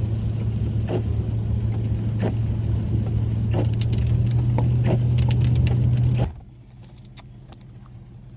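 Steady engine and road hum heard from inside a moving vehicle's cab, with scattered light clicks and taps. The hum stops suddenly about six seconds in, leaving only faint ticks.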